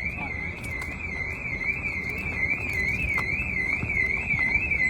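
Electronic alarm tone warbling rapidly up and down in pitch, about two and a half sweeps a second, steady and unbroken, over a low rumble.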